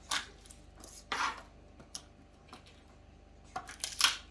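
Scattered knocks and a short scrape of kitchen utensils and dishes being handled on a counter during food prep, about five in all, with the loudest knock near the end.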